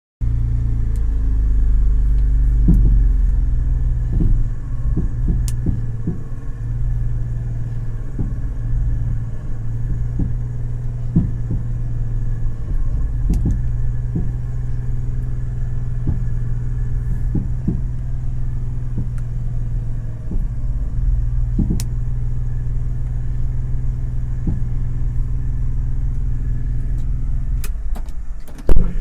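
Ashok Leyland Dost CNG light truck with its engine running steadily, and irregular knocks and clicks over it from the steering: the steering noise fault. The engine stops shortly before the end, followed by a single loud thump.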